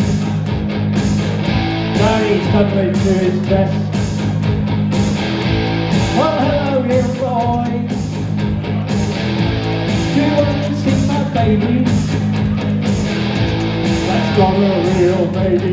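Live rock band playing amplified electric guitar and electric bass over a steady beat, with a guitar line that bends in pitch about six seconds in.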